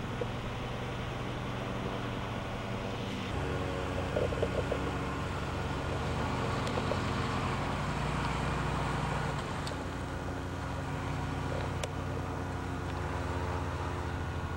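A car's engine and road noise while driving: a steady low hum under a noisy rush. The engine note shifts a little a few seconds in and again about halfway through.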